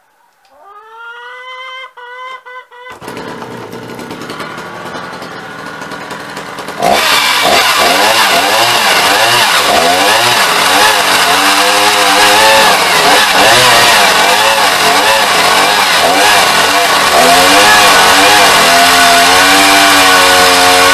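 Two-stroke chainsaw starting about three seconds in and running briefly at a lower speed. About seven seconds in it goes to full throttle, cutting through a large log, its pitch wavering as the chain bites into the wood.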